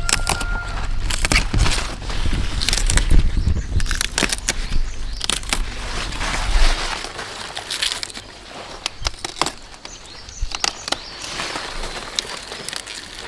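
Rustling and crackling of leaves and stems being handled, with irregular sharp snaps. A low rumble runs under the first half and stops about seven seconds in.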